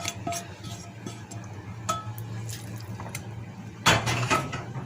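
Spoon and dish clinking as breaded chicken pieces are mixed into cooked spaghetti, with a few light clinks and a louder clatter near the end.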